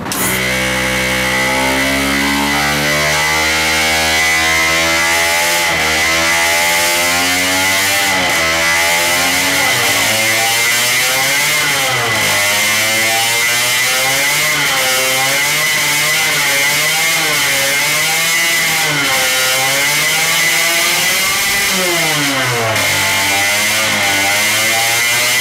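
Supercharged 50cc two-stroke single running on a dyno rig with no load, only the inertia of the system, its carburettor's additional power jets open. The revs keep rising and falling unevenly, with a few deeper dips, over a steady high whine.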